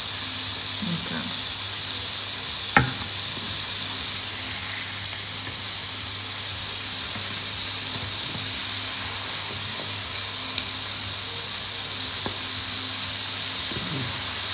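Butter sizzling steadily as it melts and foams in a hot pan, with a single sharp click about three seconds in.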